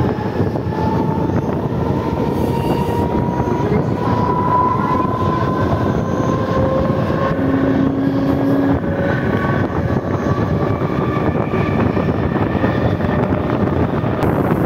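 Mumbai suburban electric local train running at speed, heard from the open coach doorway: a steady loud rush of wheels on rail and wind. On top of it is a whine that rises slowly in pitch through the first few seconds, the traction motors as the train gathers speed.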